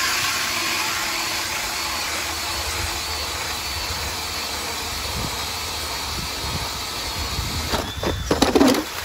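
DeWalt cordless drill spinning an 8-inch hand ice auger through a Clam drill plate adapter, its blades cutting steadily through about 4 inches of ice. Near the end the sound grows louder and more uneven.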